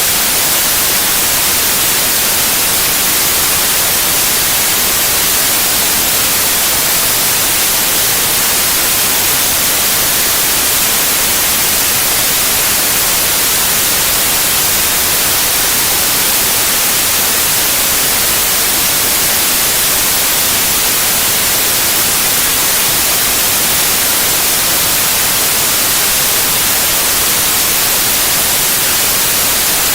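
Synthetic white noise: a steady, even hiss across the whole range, unchanging and with no events.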